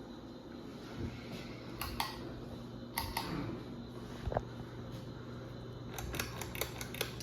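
1998 Hunter Low Profile II ceiling fan running on low speed: a steady motor hum with scattered light clicks.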